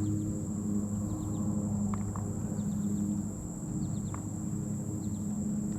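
Crickets trilling steadily in a high, unbroken tone over a low steady hum, with scattered small ticks and short chirps.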